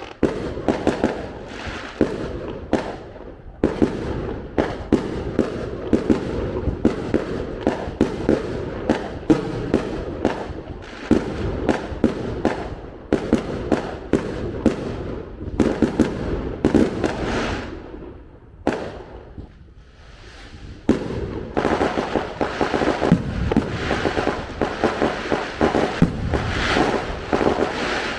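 Fireworks going off in a dense, continuous barrage of bangs, pops and crackles. It eases briefly about two-thirds of the way through, then builds up again.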